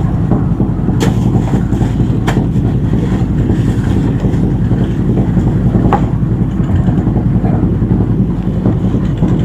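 Boat engine running steadily with a low rumble, with a few sharp knocks from time to time over it.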